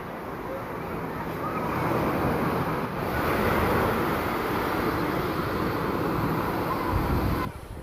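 Steady rushing noise of sea surf mixed with wind blowing on the microphone. It swells about two seconds in and drops away sharply near the end.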